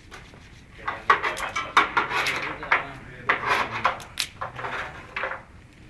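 Clattering and scraping of metal and wood at a charcoal parrilla grill, in short knocks from about a second in, with people talking underneath.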